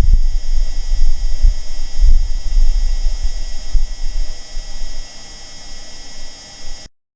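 Martian wind recorded by the Perseverance rover's microphone: a gusty low rumble that rises and falls, over faint steady high-pitched tones. It weakens after about five seconds and cuts off suddenly just before the end.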